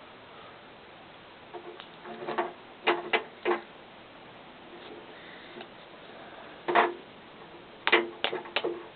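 Small plastic model-kit parts clicking and knocking together as they are handled and pressed on and off. The clicks come irregularly in small clusters of sharp taps.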